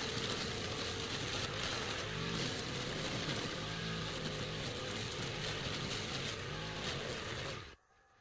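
A small petrol engine running steadily at a fairly constant speed, then cutting off sharply near the end.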